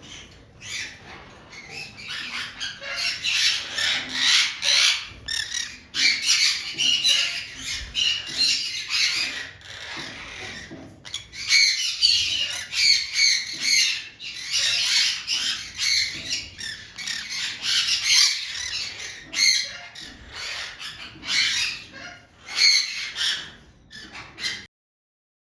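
Many birds squawking and chirping together in a dense, continuous chatter of short high calls. It stops abruptly near the end.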